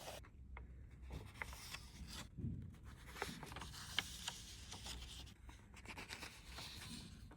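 Faint rustling and scratching of paper, broken by small ticks and taps.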